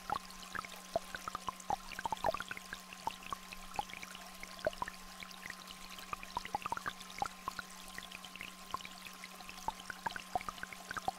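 Two steady electronic tones, a low hum and a higher tone, held without a break over a small stream trickling and raindrops plinking irregularly.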